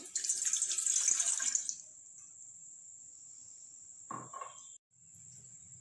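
A glass of water poured into a cooking pot, splashing steadily for about two seconds and then stopping. A short knock with a slight ring follows about four seconds in.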